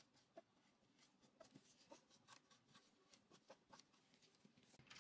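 Very faint, irregular rubbing strokes and small clicks: a lint-free pad wet with rubbing alcohol wiped over plastic press-on nail tips by gloved fingers.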